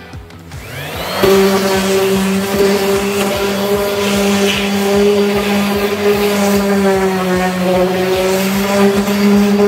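Corded random orbital sander spinning up about a second in, then running at a steady pitch as it sands cedar boards.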